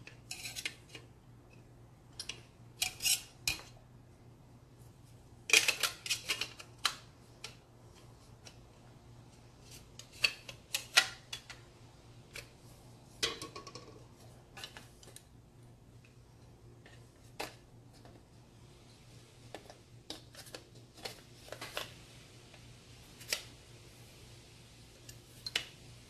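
Polymer Magpul MOE carbine handguard pieces and metal AR-15 upper parts clicking and clattering as they are handled and fitted together. The sharp clacks come in irregular clusters, with quiet stretches between.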